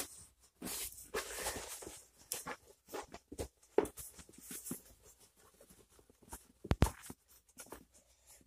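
Faint, scattered rustles and light taps, like small movements and handling, with one sharper knock nearly seven seconds in.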